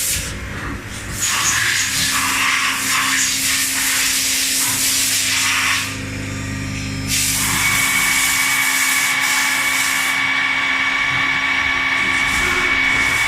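Takamaz EX 15 CNC lathe running its turret-mounted driven tool. The first half is hissing over a low hum; about seven seconds in, a steady high-pitched motor whine sets in and holds as the live tool spins.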